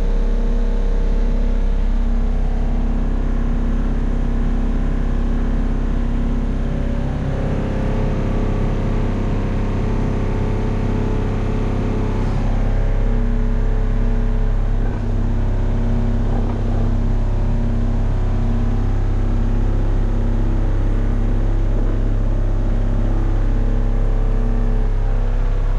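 2019 ASV VT70 skid steer's diesel engine running steadily, its note shifting about a third of the way in.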